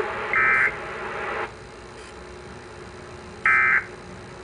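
Emergency Alert System end-of-message data tones: two short bursts of buzzy digital data about three seconds apart, over low broadcast hiss.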